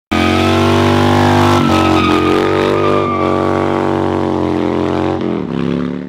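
Harley-Davidson V-twin motorcycle engine running under load as the bike rides along, with brief breaks in the note about a second and a half and three seconds in and the revs falling near the end.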